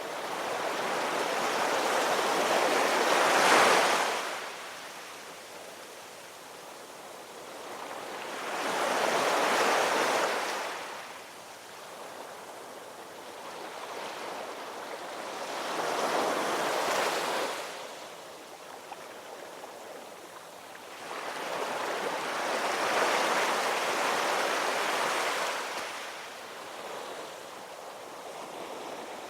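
Ocean waves breaking and washing in, four swells each rising and then falling away, about six to seven seconds apart, with a softer wash between them; the first, about three and a half seconds in, is the loudest.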